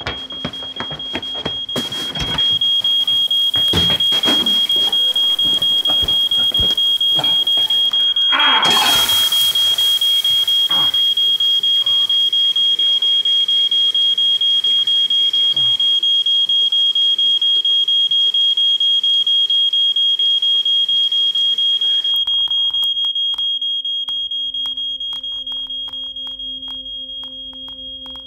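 Smoke alarm sounding continuously, one shrill high tone with a fast pulse, set off by a burnt pan; it gets much louder a couple of seconds in and fades away over the last few seconds. About eight seconds in there is a brief loud hiss, with a few knocks before it.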